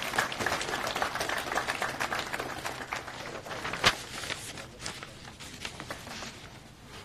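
Audience applause, dense at first and thinning out as it dies away, with one sharp click about four seconds in.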